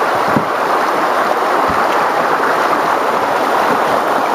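Shallow river rapids rushing and splashing over rocks close by, a steady loud rush of water, with one low thump about one and a half seconds in.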